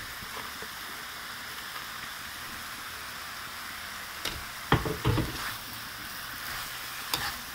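Stir-fry of shrimp, pork, carrot and freshly added bean sprouts sizzling in a hot wok with a steady frying hiss. About halfway through and again near the end, a metal ladle knocks against the wok a few times as the filling is stirred.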